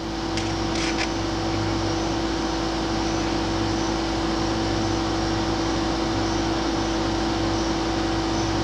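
Steady mechanical hum and even hiss with a constant low drone, with a couple of brief faint clicks about a second in.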